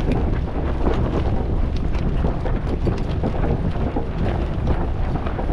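Wind buffeting the microphone: a steady, heavy low rumble with a rushing hiss above it.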